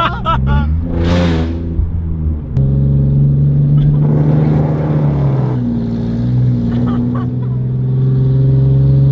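Holden VE Commodore's engine and exhaust heard from inside the cabin while driving, a loud, steady low engine note that sets in a couple of seconds in. A brief whooshing swish comes about a second in, and a few words are spoken at the very start.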